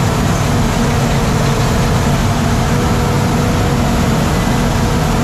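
Crawler bulldozer's diesel engine running steadily and loudly, heard from inside the dozer's open, mesh-screened operator cab.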